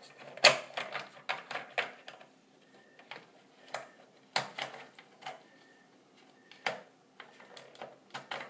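Hard plastic toy pieces of a Bat Signal model clicking and knocking together as they are worked and snapped into place by hand: irregular clicks, the loudest about half a second in, at about four and a half seconds and near seven seconds.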